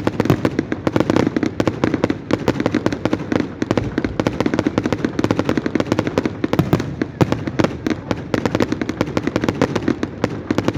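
Fireworks display going off in a dense, rapid run of sharp bangs and crackles, many a second, without a pause.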